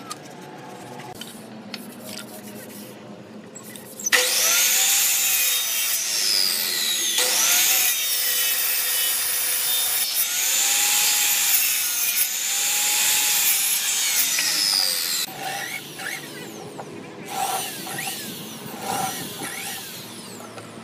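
Electric miter saw cutting through a hardwood board: it starts suddenly about four seconds in and runs loud for about eleven seconds, its pitch rising and falling several times as the blade bites. It then cuts out to quieter, uneven sounds.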